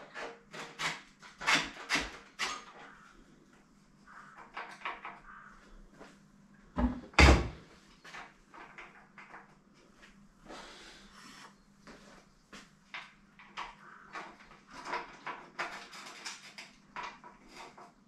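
Clicks and knocks of tools and parts being handled while dismantling a bike frame, coming irregularly, with two loud knocks about seven seconds in.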